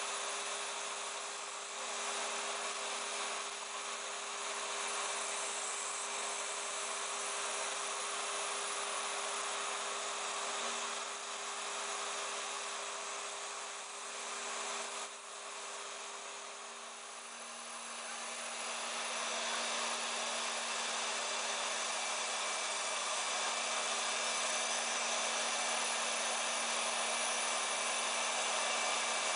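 Small hobby CNC router milling Depron foam: its spindle motor running steadily while a vacuum cleaner hose sucks away the foam chips, a steady whirring hiss with a constant low hum. The sound dips slightly about halfway through, then runs steady and a little louder.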